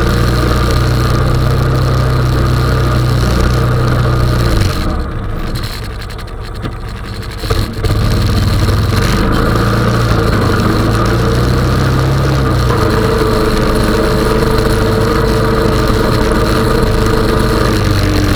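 Honda 420 ATV's single-cylinder four-stroke engine running while plowing snow. It eases off for about three seconds near the quarter mark, then comes back up to a steady run with a shifted pitch.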